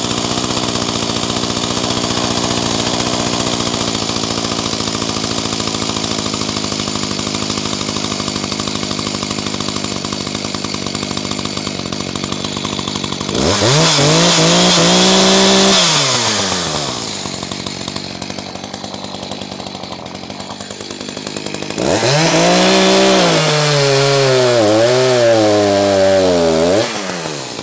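Echo CS-590 two-stroke chainsaw, fitted with a CS-620 carburettor and ignition coil, idling steadily. About halfway through it is revved up for a couple of seconds and drops back to idle. Near the end it is revved again while cutting into a log, its pitch wavering under the load, with the mixture running a little fat (rich) on the stock carburettor settings.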